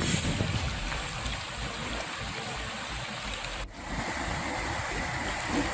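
Steady rush of flowing floodwater, a continuous watery wash, with a brief drop-out about three and a half seconds in.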